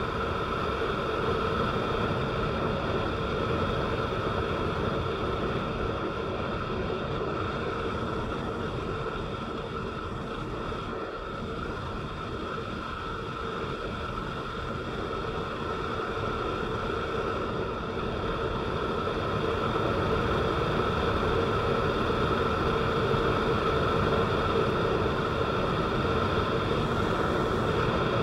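A vehicle driving on a rain-wet road: steady engine and tyre noise with a constant drone, growing a little louder about two-thirds of the way through.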